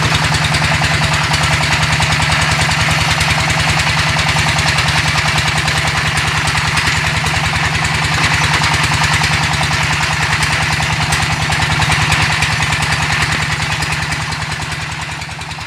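Engine-driven brick-making machine running steadily, a low engine drone with a fast, even pulse, dying away near the end.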